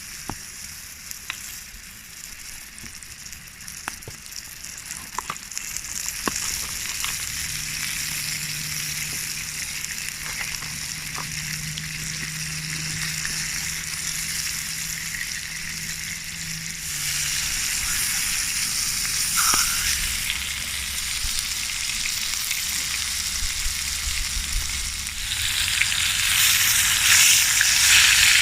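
Steak frying in a pan on a camp stove: a steady sizzle with a few pops early on, getting louder about two-thirds of the way through and again near the end.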